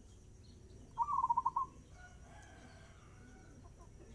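Caged zebra dove (perkutut) singing one fast-tempo cooing phrase about a second in: an opening note followed by a quick run of short, clipped coos, lasting under a second. Faint calls from other birds follow in the background.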